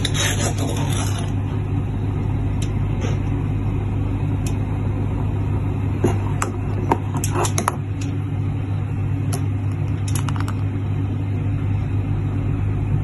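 A metal spoon stirring in a steel pot on a gas stove, clinking against the pot in a cluster about six to eight seconds in and a few more times near ten seconds, over a steady low hum.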